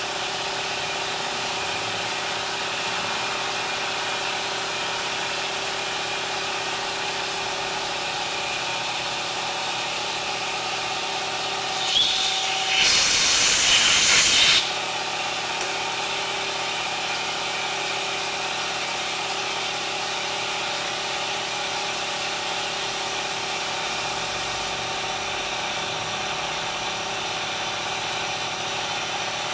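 Steady hum of running shop machinery with a constant set of tones. About halfway through, a loud hiss lasting about two and a half seconds starts sharply and cuts off suddenly.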